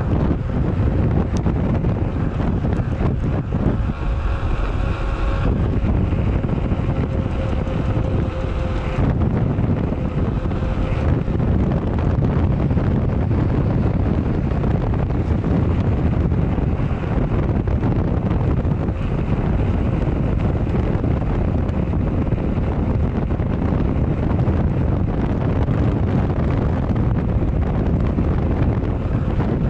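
Wind buffeting the microphone of a bike-mounted camera over the steady rolling noise of a Maxxis Minion DHRII 29x2.6 mountain-bike tyre on gravel. A steady tone joins it about four seconds in and fades out several seconds later.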